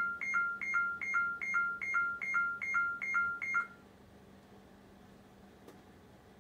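Electronic beeping, a short two-note tone repeating about two and a half times a second, which stops about three and a half seconds in. After that only faint room tone with a low steady hum.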